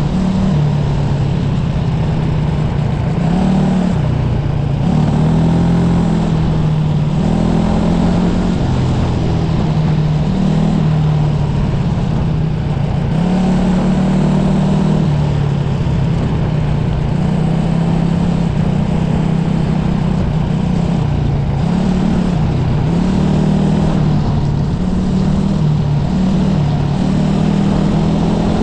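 SA250 competition kart's engine under hard driving, heard from the driver's seat. Its pitch climbs and falls back again and again as the throttle is opened and lifted.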